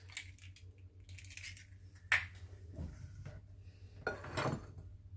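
Eggs being cracked against the rim of a glass dish: a sharp clink about two seconds in and a short crackle of shell about four seconds in, over a low steady hum.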